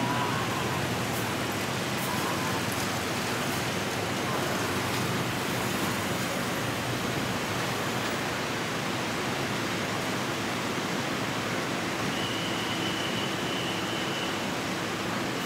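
Steady rushing noise of road traffic and idling vehicles at an airport kerbside, without a clear engine note. A thin high whine comes in for a couple of seconds near the end.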